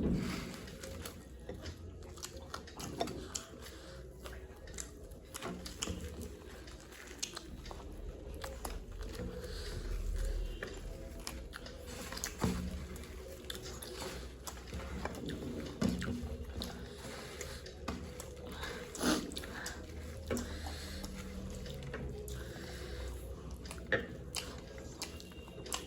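People chewing and crunching food close to the microphone, with scattered short crunches and clicks.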